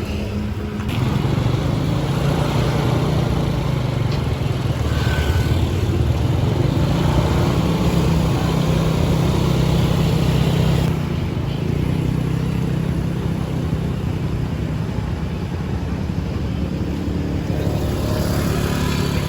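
A motor vehicle engine running steadily under road noise.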